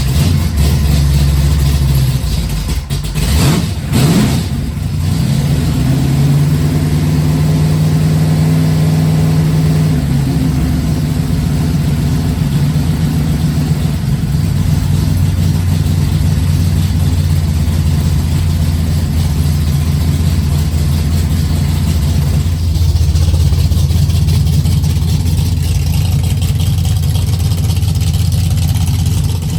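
1968 Plymouth Barracuda drag car's engine running through short header collector extensions and glass-pack mufflers just after starting. It gives a couple of quick revs about three to four seconds in, then settles into a steady, loud idle.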